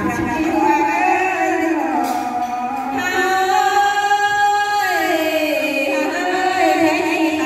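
A woman singing a Thái (Tai) folk song into a microphone through a PA, in long drawn-out notes that slide in pitch; about halfway through she holds one note steady for nearly two seconds, then glides down.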